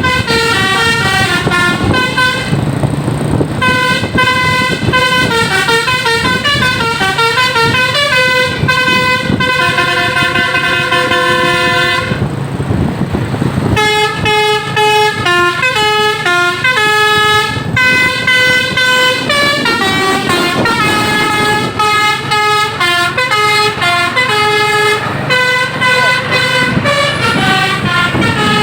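Basuri-type telolet musical horn on a tour bus playing quick stepping melodies, with short breaks about three seconds and twelve seconds in; the bus's engine rumbles underneath.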